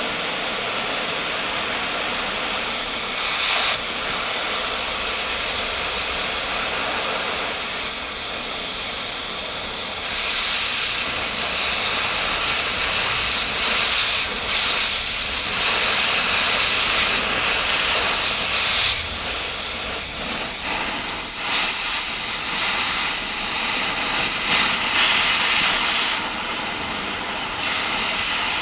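Cutting torch hissing steadily as it burns through a steel plate on a tractor lift arm, with small swells in level.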